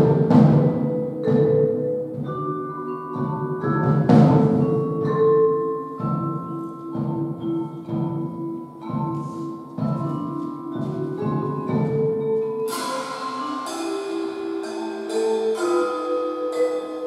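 Live percussion ensemble playing: mallet percussion carries a melody over drum kit beats, with cymbal crashes near the start and about four seconds in. About three-quarters of the way through the low drumming drops out and higher, quicker struck notes continue.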